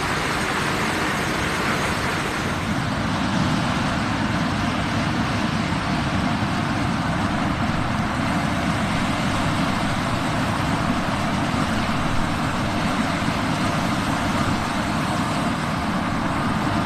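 Combine harvester running steadily in the field: a continuous, even engine and machinery drone with no changes.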